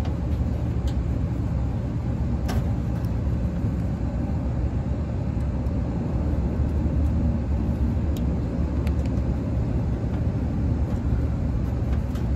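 Steady low background rumble, with a few light clicks or taps.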